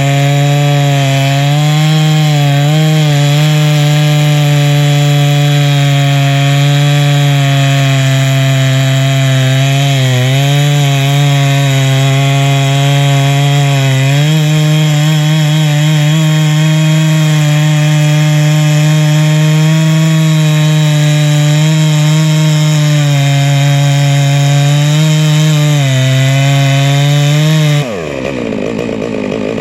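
Huztl MS660-clone two-stroke chainsaw held at full throttle while ripping lengthwise through a log on a chainsaw mill, its pitch dipping slightly now and then under load. Near the end the throttle is released and the engine note falls sharply and keeps running at a lower speed.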